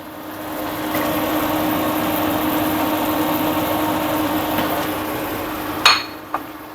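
Pav bhaji being stirred and cooked in the pot: a steady rough noise over a constant hum, which stops with a sharp knock near the end, like a spoon on the pot.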